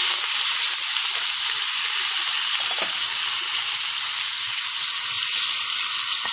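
Curry leaves sizzling in hot oil in a small kadai of tadka (mustard seeds and chana dal), with a steady loud hiss, stirred with a steel spoon.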